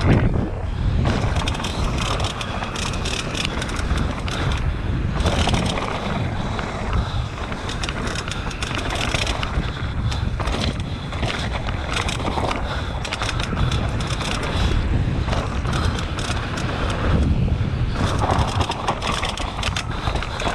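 Downhill mountain bike (Nicolai Nucleon 16) riding a rough track: tyres rumbling over dirt and rocks, with frequent sharp clicks and knocks. The rider puts the popping noises down to a faulty damper cartridge in the RockShox Zeb fork.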